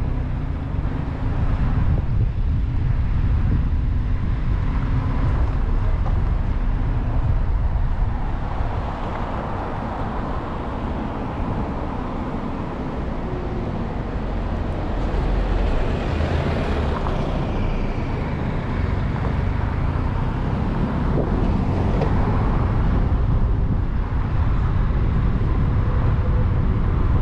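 A car driving on city streets: steady engine and tyre rumble, heaviest at the low end.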